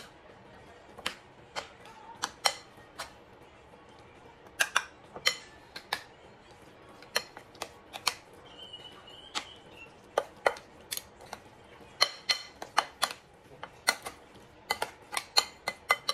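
A spoon stirring a thick grated sweet potato batter in a ceramic bowl, clinking against the bowl's sides in irregular sharp knocks, some in quick runs of several.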